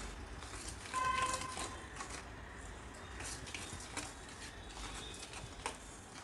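Faint scraping and light clicks of a utensil stirring flour into a ghee-sugar batter in a steel bowl. A short steady high-pitched tone sounds briefly about a second in.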